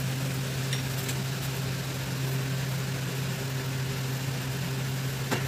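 A steady low mechanical hum, with a few faint light ticks about a second in.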